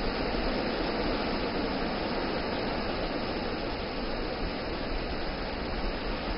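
Wind blowing: a steady, even rushing noise.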